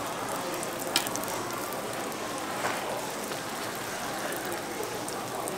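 Green-tea hotteok sizzling in oil on a griddle, a steady frying hiss, with one sharp tap about a second in.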